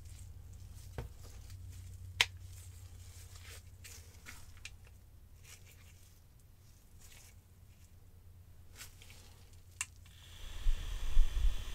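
A few sharp clicks from handling a USB LED clock fan and its cable, then, about ten seconds in, the fan's small motor starts and runs with a steady whir.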